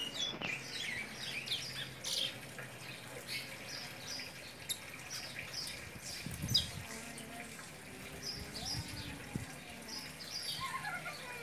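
Young curió (chestnut-bellied seed finch), a six-month-old male still in brown juvenile plumage, singing in his cage: a loose string of short, high chirping notes.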